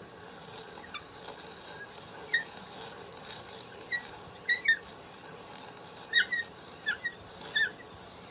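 A string of about ten short, high squeaks or chirps at irregular intervals, the loudest pair about halfway through and another a little after.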